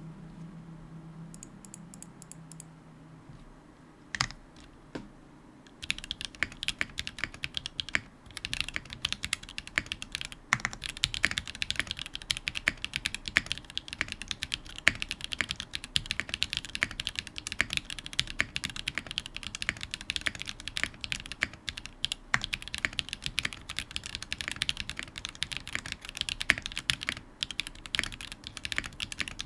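Typing on a Smith+Rune Iron165 custom mechanical keyboard with lubed Zaku switches, a forged carbon plate and GMK Apollo keycaps. A few lone keystrokes come first, then steady, rapid typing from about six seconds in.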